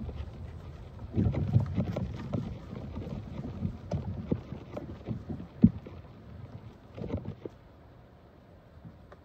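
Low rumble of wind and handling on a phone microphone, with scattered small clicks and rustles and one sharper click a little past halfway; it dies down near the end.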